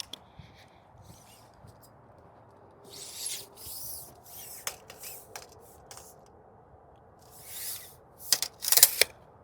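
Several scraping strokes on wood, followed near the end by a quick run of sharp taps.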